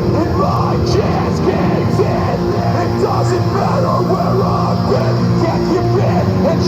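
Live metalcore band playing loudly, with distorted guitars.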